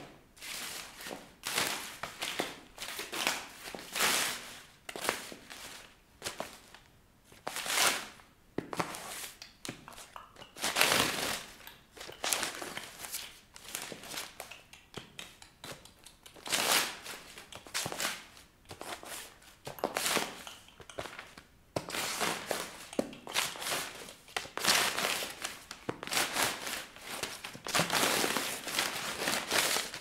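Sheets of paper crumpling, crinkling and tearing under high-heeled shoes that step and stamp on them, in irregular crunches and rustles that come about once a second.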